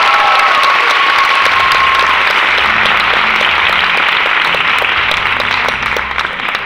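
Audience applauding loudly at the end of a song, with one held tone fading out in the first two seconds; the clapping dies down near the end.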